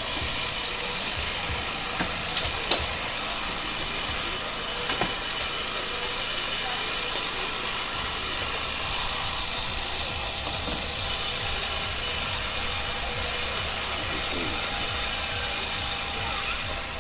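Portable hydraulic rescue-tool power unit running steadily as firefighters work on a car body, with a few sharp metallic clicks and cracks about two, three and five seconds in. The running grows louder and brighter from about eight seconds in, as the tool is put under load.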